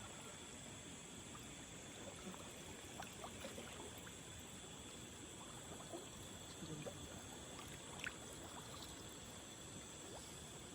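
Faint trickling water with a few small scattered clicks and light splashes, over a steady high hum.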